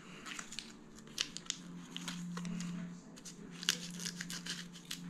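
Foil wrapper of a block of cream cheese crinkling and tearing as it is peeled open by hand, in scattered short crackles.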